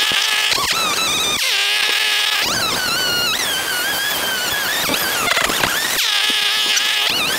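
Small two-stroke engine running hard, its pitch rising and falling over and over as the revs change.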